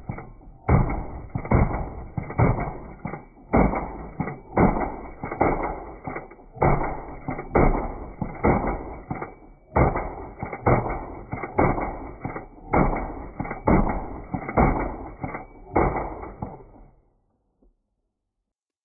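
Zastava ZPAP92 AK pistol in 7.62x39 being fired in a magazine dump: rapid semi-automatic shots, about two a second with a few short pauses, stopping near the end.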